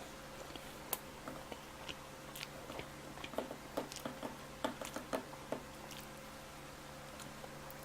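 Close-miked chewing of pizza: a string of short wet mouth clicks and smacks, busiest in the middle few seconds, over a low steady hum.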